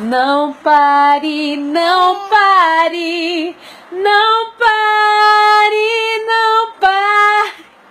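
A woman singing a gospel song without accompaniment, in drawn-out phrases with short breaths between them; from about halfway through she holds a long, higher note.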